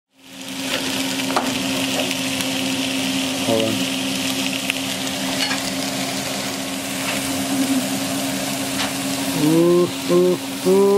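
Head-on shrimp, garlic and onion sizzling in butter in a nonstick wok, with a steady low hum underneath and a few clicks from a utensil on the pan. Near the end a voice makes three short sounds.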